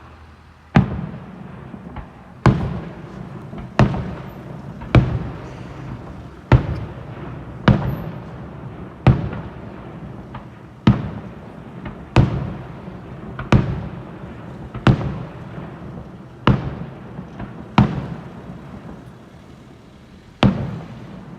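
Fireworks display: aerial shells bursting one after another, about fourteen loud bangs roughly a second and a half apart, each followed by a fading rumble of echo and crackle.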